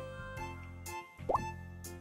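Light, cheerful background music with a steady beat, with a short rising pop sound effect about a second and a half in.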